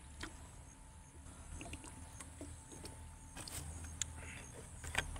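A person drinking water and then chewing a mouthful of rice and vegetables: faint, scattered mouth clicks and smacks over a steady low hum.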